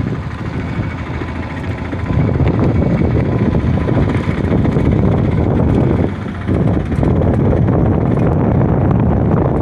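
Vehicle noise while travelling along a badly broken road, with wind buffeting the microphone. It gets louder about two seconds in and dips briefly around six seconds.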